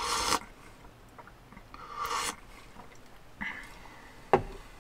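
Slurping soup from a metal cup: one slurp at the start and another about two seconds in, then a single sharp knock on the wooden table near the end.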